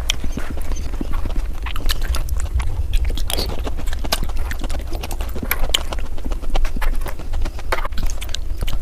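Close-miked eating sounds sped up: chewing, crunching and mouth clicks running together into a fast, dense patter, over a steady low hum.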